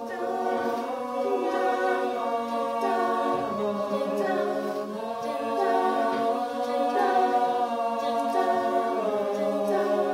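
Mixed-voice a cappella group singing sustained chords in close harmony without lyrics, the chord shifting every second or so.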